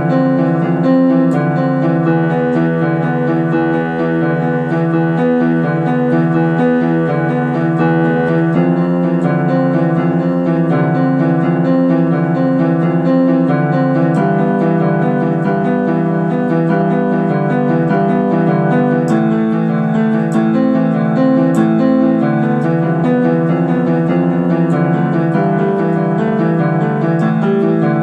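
Yamaha electronic keyboard improvised freely on the white keys only, so there are no sharps or flats. Several notes sound at once, held and overlapping.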